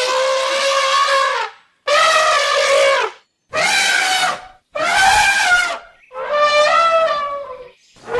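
African savanna elephant trumpeting: a run of about five loud, brassy blasts, each a second or so long, separated by short breaks.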